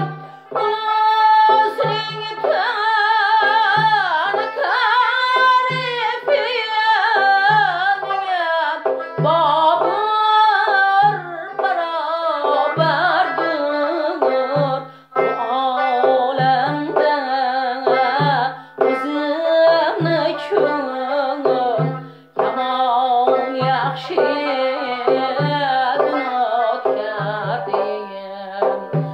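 A woman singing an Uzbek classical ashula in a long, ornamented melodic line, accompanying herself on a doira frame drum with a steady beat of deep strokes about once a second.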